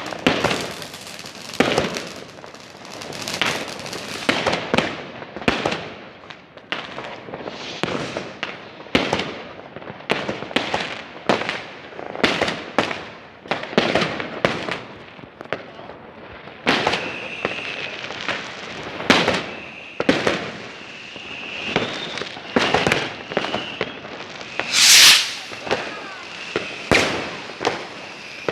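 Fireworks going off in quick succession: many sharp bangs and crackles, the loudest about 25 seconds in. A high, wavering tone runs under them through the second half.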